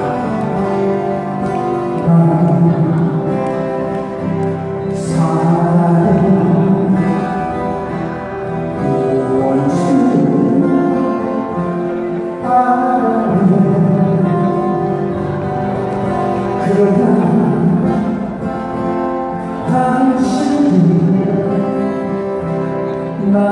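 Several acoustic guitars playing a song together with a singing voice, amplified through a small PA.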